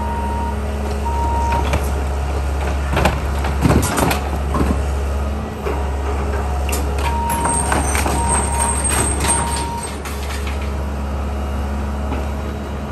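Diesel engine of a John Deere tracked excavator running steadily while it tears into a building, with crashes of falling debris about three to four and a half seconds in and again from about seven seconds. A backup alarm beeps in a repeating pattern about seven seconds in.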